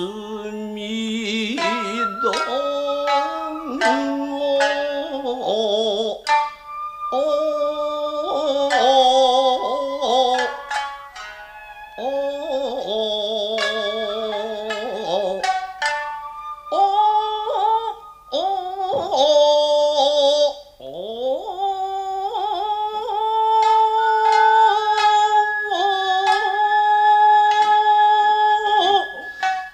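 Nagauta music: shamisen plucked notes under a sung line, the voice holding long wavering notes, with one long held passage near the end.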